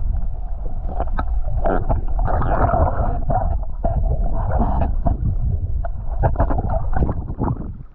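Seawater churning and gurgling around a GoPro held just under the surface, heard muffled through the submerged camera, with a constant low rumble and scattered clicks and knocks. The level drops sharply near the end.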